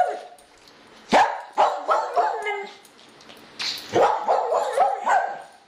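A dog barking in two runs of short, sharp barks and yips, the second run starting about four seconds in.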